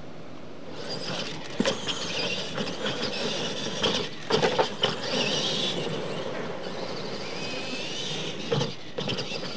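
Radio-controlled monster trucks racing on a dirt track: electric drive motors whining, rising and falling in pitch as they accelerate and ease off. Sharp knocks and clatters come as the trucks hit ramps and land, the loudest a cluster about four to five seconds in.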